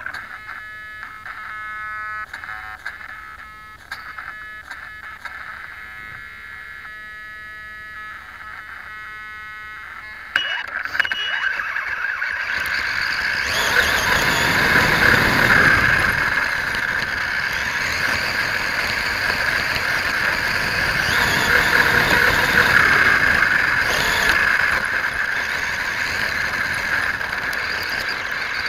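Onboard sound of a radio-controlled rock racer's electric drive, heard from a camera on the chassis. For about the first ten seconds there is a thin whine of several steady tones that comes and goes at low throttle. About ten seconds in it jumps to a louder, steady whir with the rush of tyres on dirt and gravel as the truck drives on.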